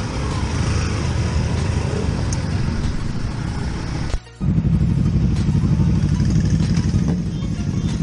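Motorcycle engine running as the bike rolls slowly through traffic, heard from the bike's own camera. The sound cuts out for an instant about four seconds in, and the engine is louder after it.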